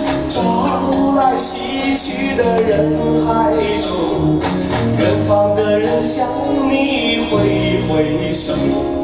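Music with a singing voice over a bass line that steps from note to note.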